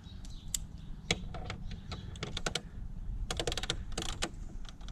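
Irregular light clicks and taps, with a quick run of clicks about three and a half seconds in and more just after four seconds: screws and hand tools being handled while a car's fuse block is taken apart.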